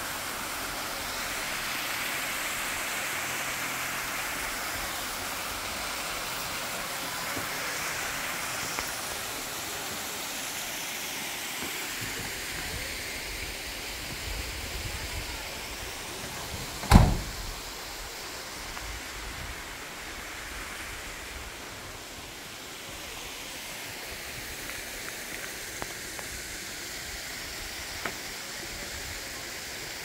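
Steady rush of a waterfall, easing off about halfway through. About seventeen seconds in, one loud thump, a van door slamming shut.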